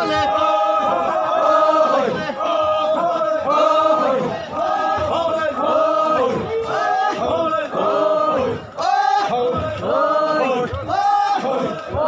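Crowd of marchers chanting together in unison, a short rising-and-falling call repeated over and over, a little faster than once a second.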